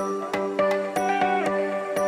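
Background music: sustained melodic notes over a steady beat of light percussion, about three strikes a second.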